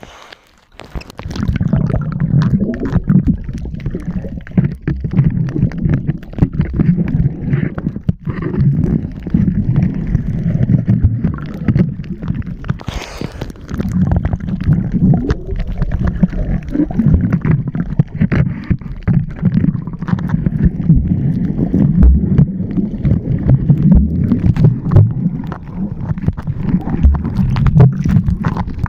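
Muffled underwater water noise picked up by a diving camera: a steady low rumble and gurgle with scattered knocks, starting about a second in, and a brief brighter rush about halfway through.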